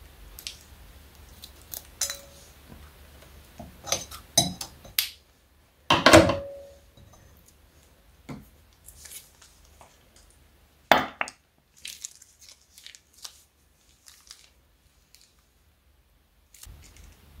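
Plastic piping bag crinkling and clicking as it is squeezed over a plastic mixing bowl, in scattered short bursts, with a sharp knock about six seconds in and another about eleven seconds in.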